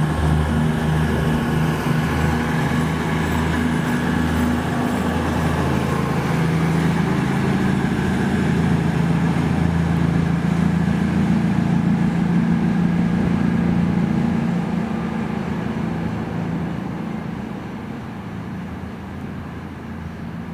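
A train at the station giving a steady low engine hum. It fades over the last few seconds.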